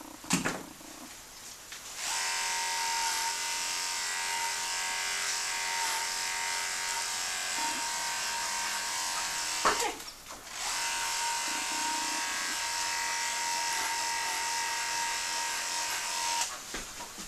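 Electric dog-grooming clippers running with a steady high-pitched hum as they are passed over a cocker spaniel's coat. They start about two seconds in, stop for about a second just past the middle after a sharp click, then run again until near the end.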